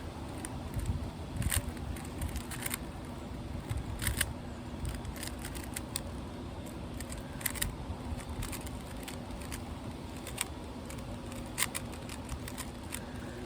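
Rubik's cube layers being turned by hand: scattered sharp plastic clicks and rattles, some in quick pairs. Under them is a steady low rumble of wind on the microphone.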